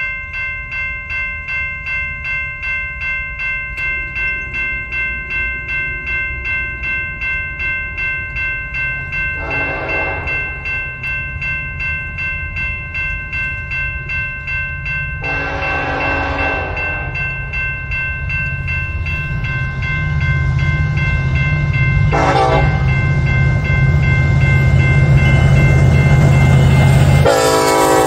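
Union Pacific freight locomotive approaching and blowing its horn in the grade-crossing pattern: two long blasts, a short one, then a long one near the end, while the engine's low rumble grows louder. A crossing bell rings steadily, about twice a second.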